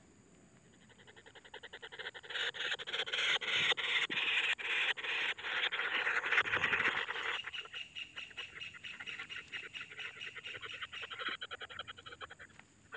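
White-throated kingfisher nestlings calling in their nest burrow: a long run of rapid rasping pulses, about five a second. It builds up about two seconds in, is loudest for the next five seconds, then goes on more faintly until just before the end. These are begging calls for food.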